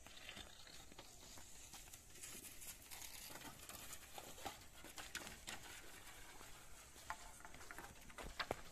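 Faint rustling and scattered light taps and clicks of long bamboo poles being handled and moved over dry ground, with a couple of sharper knocks near the end.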